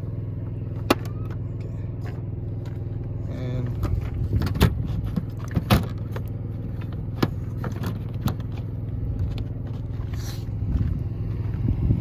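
RV's onboard gasoline generator running with a steady low hum, with a few sharp clicks and knocks of handling over it.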